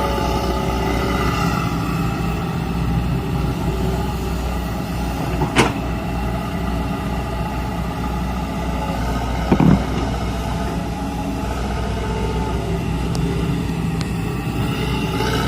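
Kobelco SK130 excavator's diesel engine running steadily, with two short knocks, about five and a half and nine and a half seconds in.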